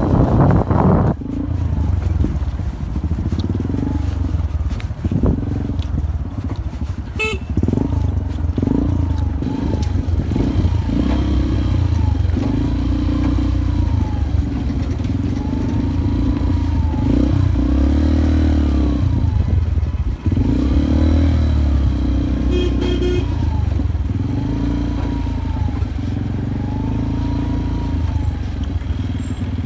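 Honda XR125 motorcycle's single-cylinder four-stroke engine running under load on a rough dirt track, its pitch rising and falling repeatedly as the throttle is worked.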